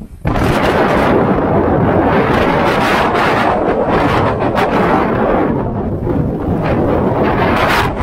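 Storm wind blasting straight into a camera microphone with no windscreen: a loud, continuous rumbling roar that sets in abruptly a moment in, as the wind protection comes off.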